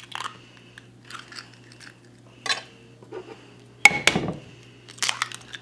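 Eggs being cracked against the rim of a glazed stoneware mixing bowl: scattered light taps and clicks of shell on pottery, with a louder sharp crack just before four seconds in.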